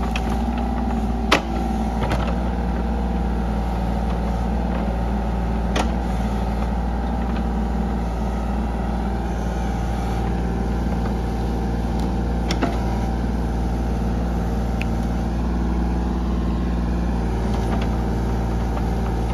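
Kubota KX033-4 mini excavator's three-cylinder diesel running steadily under working load while its bucket digs out and rips stumps and roots. A few short knocks stand out over the engine, about a second in, near six seconds, and twice around twelve seconds.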